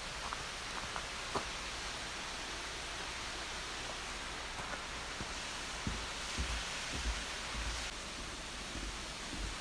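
Waterfall rushing, heard as a steady even hiss of falling water, with a few soft low bumps in the second half.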